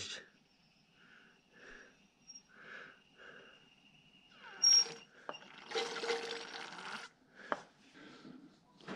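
Engine oil being forced from a hand oil pump into a backhoe loader's final drive: soft gurgles and squelches, then a longer hissing spurt about six seconds in, with a few sharp metal clicks.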